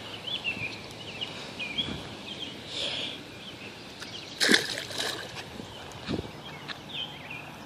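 Water sloshing, with small birds chirping throughout and a few short sharp splashes or knocks, the loudest about four and a half seconds in.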